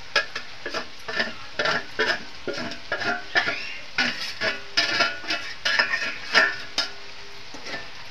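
A steel spoon scraping and tapping irregularly against a steel plate and bowl as ground peanuts are tipped into a kadhai, over the faint sizzle of capsicum frying in oil.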